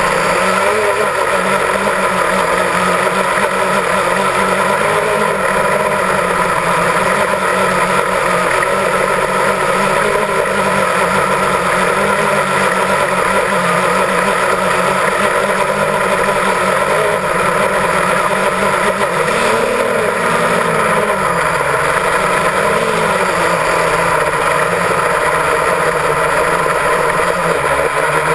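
Multirotor drone's electric motors and propellers buzzing steadily, heard loud and close through the drone's own onboard camera. The pitch wavers briefly about two-thirds of the way through.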